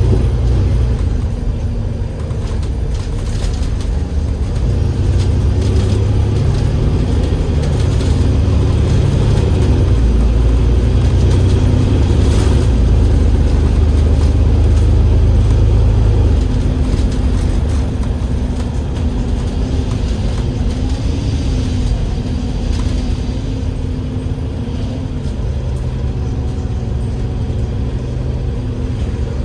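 Double-decker bus's Cummins L9E diesel engine and ZF Ecolife automatic gearbox running under way, heard from inside the cabin: a steady heavy low rumble that eases off about two-thirds of the way in, leaving a quieter drone with a faint steady tone.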